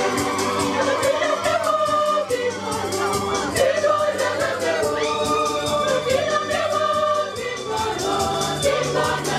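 Music with a choir singing, a song laid over the wedding procession footage.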